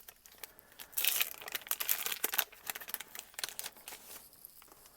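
Foil Pokémon booster pack wrapper crinkling as it is cut open and pulled apart: a dense run of crackles about a second in, then scattered crinkles.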